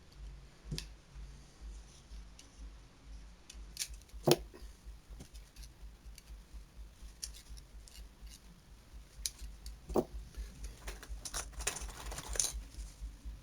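Hand work on electrical wire: scattered clicks and snips of cutters and small parts, with two sharper knocks about four and ten seconds in and a short scraping rustle near the end.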